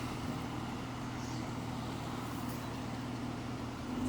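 Road traffic: a car engine running with a steady low hum amid passing-traffic noise.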